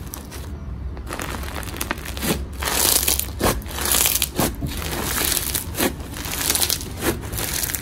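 Crunchy floam slime packed with foam beads (Bingsu beads) being squeezed and kneaded by hand, giving a dense crackling crunch that comes in irregular surges about once a second.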